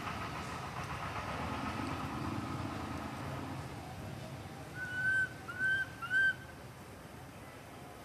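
An infant long-tailed macaque gives three short, high squeals in quick succession, each rising and then holding, while an adult grabs at it. Before the squeals, a steady hum fades away.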